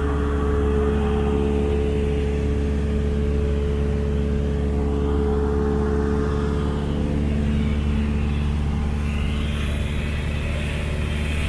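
Cessna 172's piston engine and propeller droning steadily in flight, heard inside the cabin.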